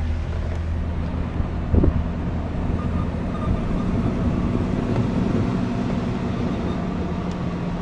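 Motorhome engine running steadily at low speed, heard from inside the cab as a low drone, with a short knock about two seconds in.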